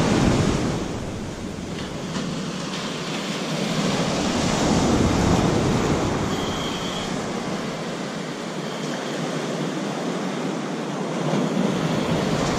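Ocean surf breaking and washing up the beach, swelling about four to six seconds in and again near the end.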